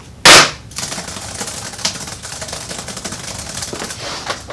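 Rapid typing on a computer keyboard, a dense run of clicks, after a short, very loud burst of noise near the start.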